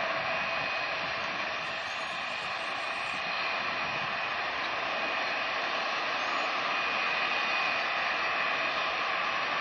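Jet airliner engines: a steady rushing noise with a faint whine, swelling slightly in the second half.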